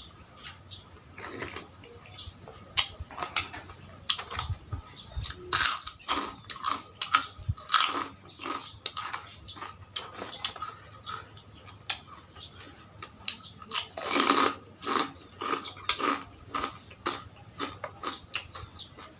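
A person eating close to the microphone: chewing with many irregular sharp crunches and smacks. A few longer, louder noisy stretches come among them, the biggest about fourteen seconds in.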